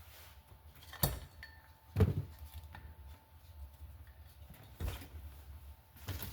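Metal tools and engine parts being handled on a workbench: three or four sharp clinks and knocks, the loudest about two seconds in, over a low steady hum.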